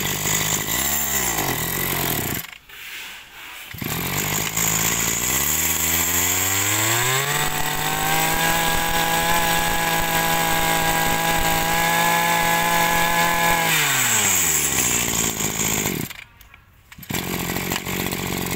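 Small 21cc two-stroke Makita brush-cutter engine running at idle. It cuts out briefly early on, then idles again and is revved up to a high steady speed for about six seconds. It drops back to idle and stops, then runs again briefly near the end.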